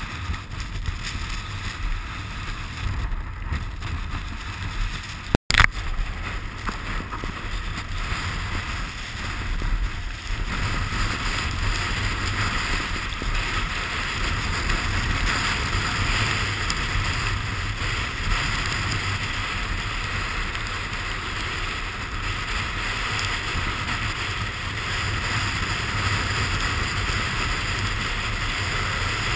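Wind buffeting the camera's microphone over the steady hiss of a snowboard sliding on snow, growing louder about ten seconds in as the rider picks up speed. A brief dropout ends in a sharp click about five seconds in.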